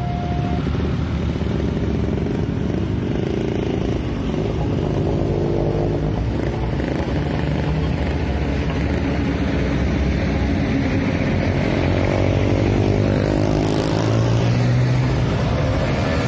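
An electronic two-tone level-crossing alarm sounds its last tone and stops about half a second in. Then a stream of motorcycles and cars pulls away across the crossing, their engines revving. A heavier truck engine joins near the end.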